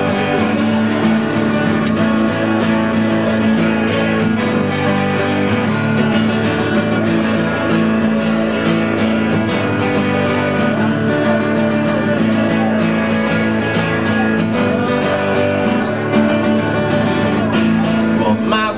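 Acoustic guitar strummed steadily in an instrumental break, with no singing.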